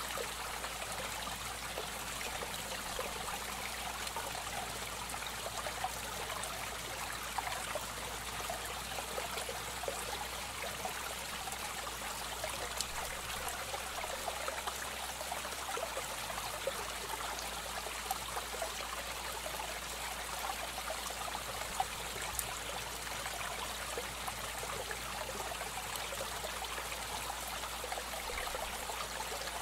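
Steady trickling and splashing of aquarium water circulation, with faint small crackles scattered through it.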